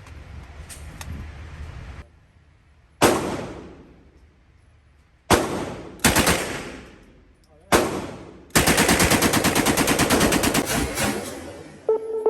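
Uzi submachine gun firing: four separate shots a second or two apart, then one long fully automatic burst of about three seconds.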